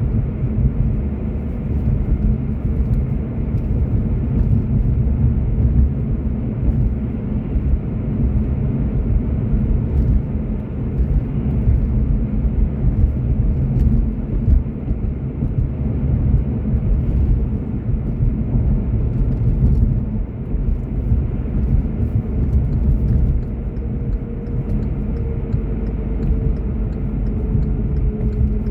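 A car driving: steady low road and engine rumble, with a faint humming tone that falls slightly in pitch near the end.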